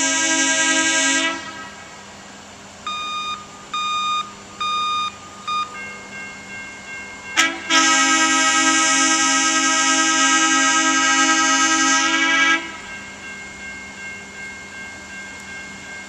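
Air horn of a rail maintenance-of-way track machine: a long blast that ends about a second in, three short high beeps, then a second long blast of about five seconds.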